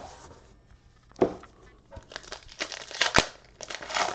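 Foil Pokemon booster pack wrapper crinkling as it is handled and torn open, in irregular rustles, with one sharp crack about three seconds in.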